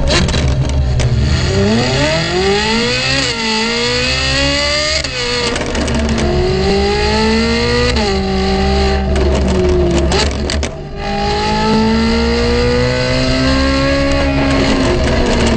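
Ferrari 458 Italia's naturally aspirated V8, fitted with a Fi valved catback and catless downpipes, pulling hard with the revs climbing in long rising sweeps. The pitch drops sharply twice like quick upshifts, then a lift-off with exhaust crackles about ten seconds in, before one more long climb.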